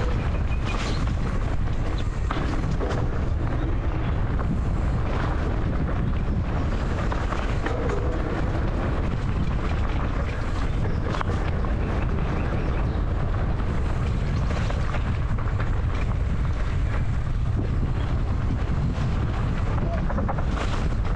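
Steady wind rumble on the microphone of a moving enduro motorcycle, mixed with its engine running.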